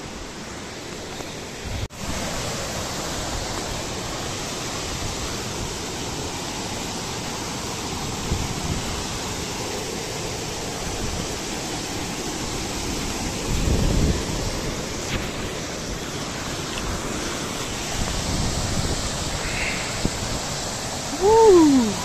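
Steady rush of a mountain stream and waterfall tumbling over rocks, stepping up abruptly in loudness about two seconds in. A brief falling call, the loudest moment, comes near the end.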